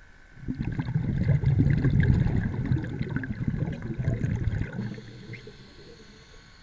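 Underwater rumble and crackle of brook water churning against a submerged camera as it is moved. It starts about half a second in, runs for about four seconds and fades away near the end.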